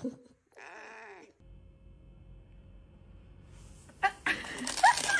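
A domestic cat gives one meow that rises and falls in pitch, about half a second in. Near the end comes a louder burst of rustling, clattering noise.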